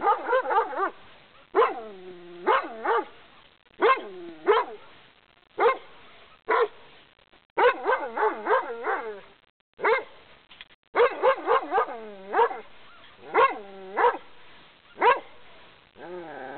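German shepherd dog barking fiercely and repeatedly, in volleys of a few barks every second or two, many barks dropping in pitch.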